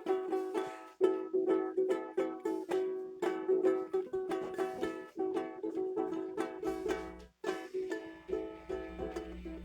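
Acoustic string instrument strummed in quick, steady chords, with a brief break about seven seconds in. A low steady hum joins near the end.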